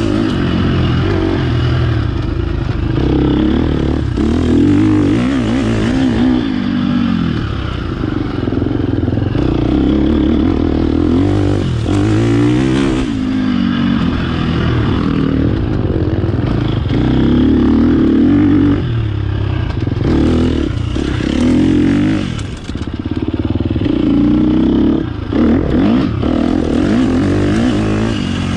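Dirt bike engine running under a constantly changing throttle on a rough trail, its pitch climbing and falling with the revs and gear changes. It is briefly backed off about two-thirds of the way through and again a few seconds later.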